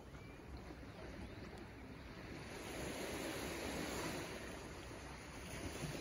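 Small waves of the calm Mediterranean Sea lapping and washing against shoreline rocks, swelling a little louder as a wave comes in around the middle.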